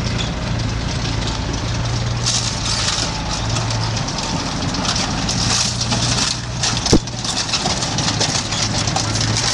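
A vehicle engine idling steadily, with a single sharp knock about seven seconds in.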